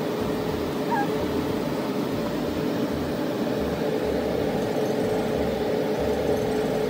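Steady machine hum at one constant pitch over a rushing noise, with an uneven low rumble underneath.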